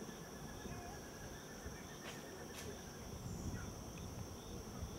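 Insects trilling: a steady high-pitched buzz with a lower, pulsing trill that stops about three seconds in, over faint background noise.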